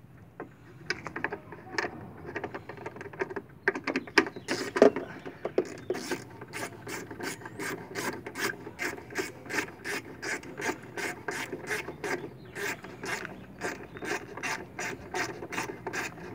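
Screwdriver ratchet clicking as long T25 Torx screws are driven in to fasten a tail light assembly: a few scattered clicks at first, then a steady run of about three clicks a second from about four seconds in.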